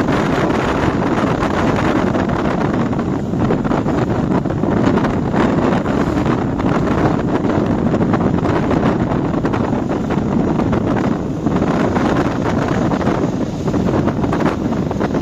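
Steady wind buffeting the microphone aboard a passenger ferry under way, over the ferry's continuous running noise and water.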